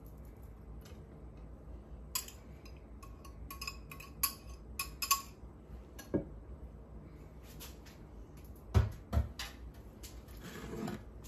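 Metal clinks and scrapes as condensed soup is emptied from cans into chicken broth in a ceramic baking dish and worked in with a wire whisk. There is a quick run of light ringing clinks, then two dull knocks about nine seconds in, and a soft scraping near the end.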